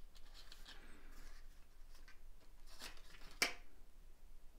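Plastic coin flips holding silver coins rustling and clicking as they are handled in a cardboard box, with two sharp clicks about three seconds in, the second the loudest.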